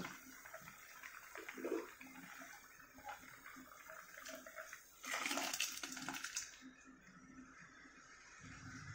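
Greens and water boiling in a clay pot: a faint, steady bubbling hiss. About five seconds in, a louder splash lasting a second or so, as the cooked toor dal is poured in.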